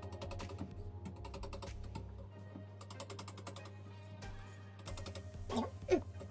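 Wire whisk beating pancake batter in a ceramic bowl: a rapid run of light clicks and scrapes against the bowl, over background music, with a louder knock near the end.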